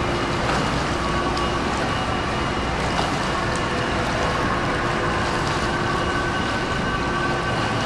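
Indoor swimming pool ambience: a steady wash of water noise with a faint constant hum underneath.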